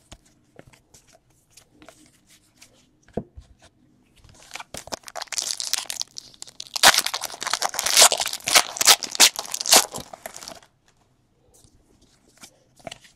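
A foil trading-card pack wrapper being torn open and crinkled. A few light scattered clicks come first, then dense crackling from about four seconds in until about ten and a half seconds.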